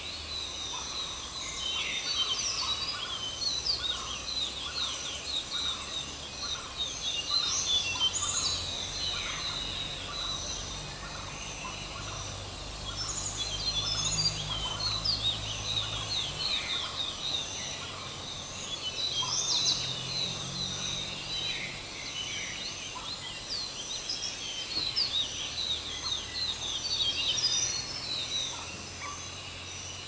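A flock of small birds chirping and chattering all at once, the chorus swelling in waves every few seconds, over a low steady hum.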